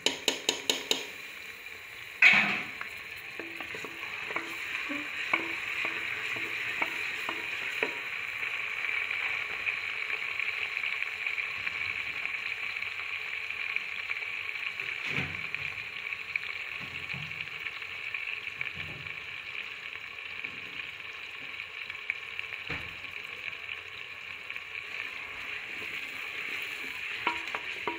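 Sliced onions and ginger-garlic paste frying in oil in a pressure cooker, a steady sizzle, while a spoon stirs them. The spoon knocks against the pot a few times, loudest about two seconds in.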